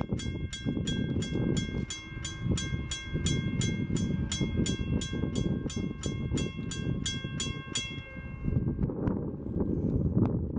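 A railroad crossing bell ringing rapidly and evenly, about three to four strokes a second, stopping about eight seconds in, over the steady low rumble of a diesel freight train's locomotives approaching.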